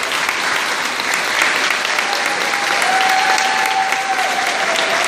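Audience applauding steadily, with one long held tone rising above the clapping in the second half.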